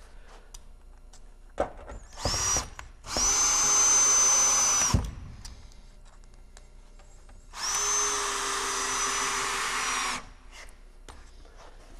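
Cordless drill driving screws through the metal flashing of stone veneer panels into the wall studs. A short spin about two seconds in, then two steady runs of about two seconds each with a high whine, the second starting past the middle.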